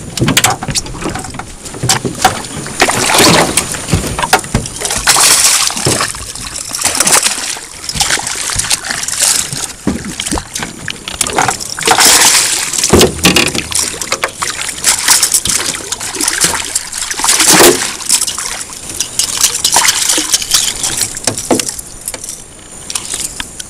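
Blue peacock bass thrashing at the surface beside a boat as it is played in and grabbed, with repeated irregular splashes and water sloshing.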